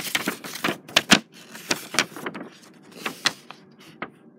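Hands handling the phone and a large paper sheet: an irregular run of clicks, taps and rustles, the loudest about a second in, thinning out near the end.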